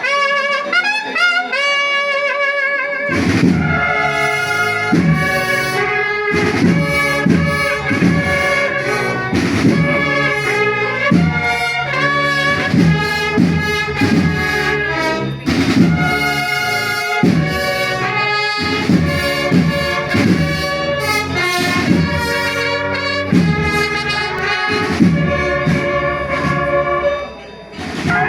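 Music led by brass instruments such as trumpets playing a melody; a steady beat with a bass line comes in about three seconds in.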